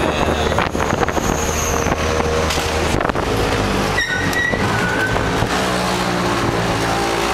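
Coco-taxi, a three-wheeled motor-scooter taxi, running along a street with its small engine droning, heard from the open seat together with wind and road noise. A brief high tone sounds about four seconds in.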